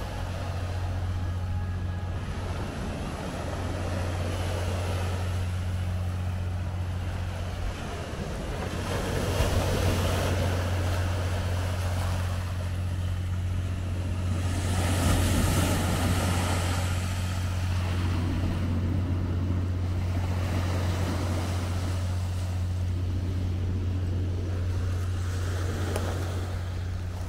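A steady low mechanical hum, with a rushing noise that swells up twice, about a third of the way in and again about halfway.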